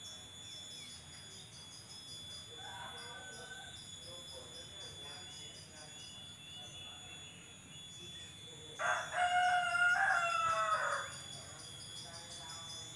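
A rooster crows once, a single call of about two seconds about two-thirds of the way through, falling at the end. Steady high insect chirping runs underneath.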